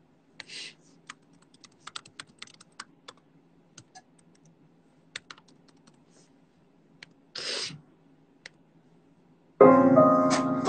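Scattered light taps and clicks on a computer keyboard, with two short hisses about half a second and seven and a half seconds in. About ten seconds in, a loud music track with keys starts playing.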